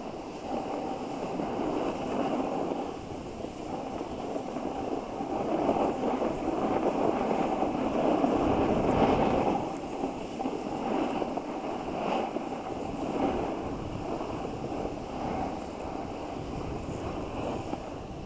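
A snowboard sliding and scraping over packed snow, with wind rushing on the camera's microphone. The scraping grows louder about six seconds in and eases off just before ten seconds.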